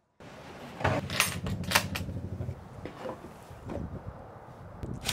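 Wooden truck-bed drawer unit and its panels being handled: a rattling rumble for about two seconds, then a few scattered sharp knocks.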